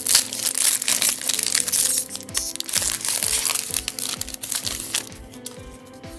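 Foil wrapper of a Panini Absolute football card pack crinkling and crackling as it is peeled open and the cards are pulled out. The crackling stops about five seconds in. Soft background music plays underneath.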